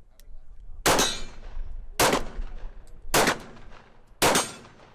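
Four 9mm pistol shots from a Taurus G3 TORO, fired about a second apart in slow, even rhythm, each followed by a short echo.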